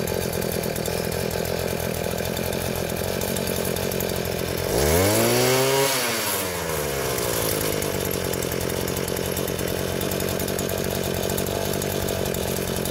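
Earthquake MC43 mini cultivator's 43cc two-stroke engine running steadily at idle on its new fuel lines. It is revved up once about five seconds in and drops back to idle about two seconds later.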